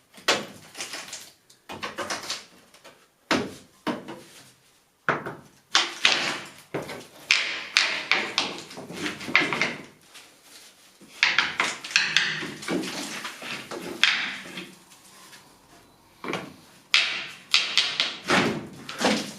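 Old plaster being worked off a lath-and-plaster wall: a run of irregular knocks and scrapes against the plaster.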